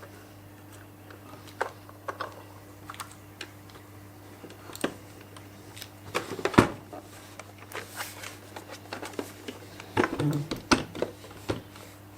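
Robot vacuum being unpacked by hand: scattered clicks, taps and rustles of cardboard and plastic packaging, with a sharp knock about halfway through and a cluster of knocks near the end.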